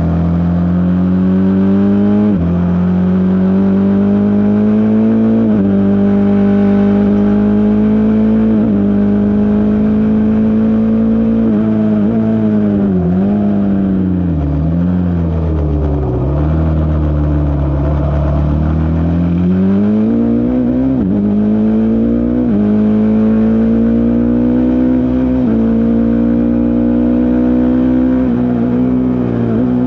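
Single-cylinder racing motorcycle engine at high revs, the pitch climbing and dropping back sharply with each upshift. About halfway through the revs fall and waver as it brakes and shifts down, then climb through the gears again.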